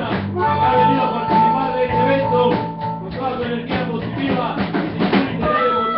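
Live rock band playing loud: electric guitar, bass guitar and drum kit, with a long held high note through about the first half.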